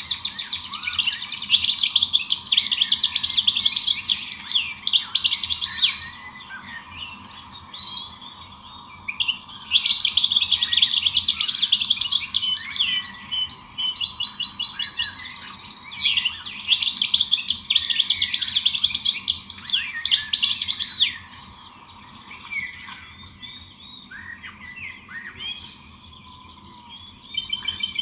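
A dense chorus of small songbirds chirping and twittering, rising to three busy stretches of many overlapping calls with sparser single chirps between them.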